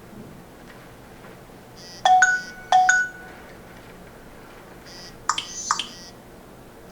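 Nokia 6700 Classic's loudspeaker playing short alert tones. First comes a brief beep twice, about two-thirds of a second apart, then about three seconds later a different short chirping tone with two quick sweeps.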